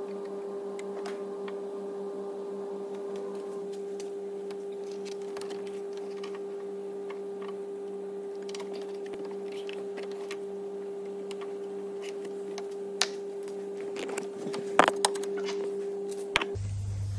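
A steady hum throughout, with scattered light clicks and a few sharper metallic knocks near the end: a 15 mm spanner levering the auxiliary drive belt tensioner back so that a drill bit can lock it.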